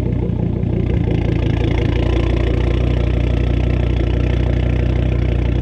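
2004 Volvo S60R's turbocharged inline-five idling steadily, warm, through an OBX catted downpipe with high-flow cats and a straight-piped exhaust.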